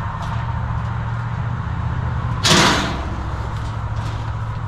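Galvanized sheet-steel panels of a nesting box being handled and fitted, with a few small clicks and one loud, short clatter about halfway in. A steady low hum runs underneath.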